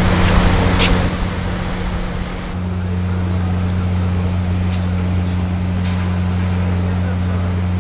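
Engine running with a steady low drone and a few faint clicks. It takes over about two and a half seconds in from a louder rushing noise with one sharp click.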